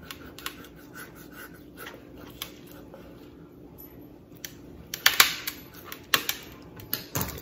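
Kitchen knife scoring raw whole chicken along the backbone: light scratching and small clicks of the blade, with a few louder sharp clacks in the last couple of seconds.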